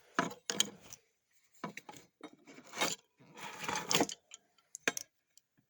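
Metal clicks and scraping as a magnet is handled against an electronic safe's solenoid lock, with short rubbing passes and sharp clicks near the end as the lock pin is pulled in and the safe opens.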